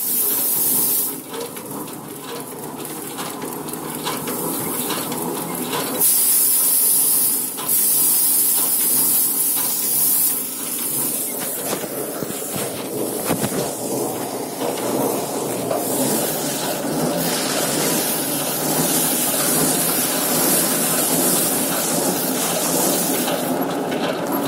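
Mini thresher's wire-loop drum spinning and beating hand-fed bundles of harvested stalks, with a hissing rush of grain and straw that swells each time a bundle is pressed against the drum, over a steady mechanical rattle.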